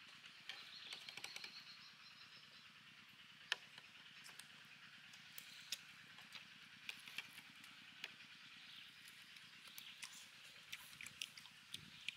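Quiet eating: a scattering of small sharp clicks of metal spoons against plates, with faint chewing, over a faint steady outdoor hiss.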